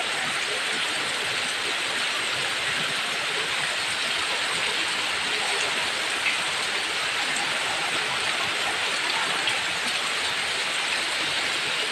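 Heavy tropical rain pouring down steadily in a dense, even hiss.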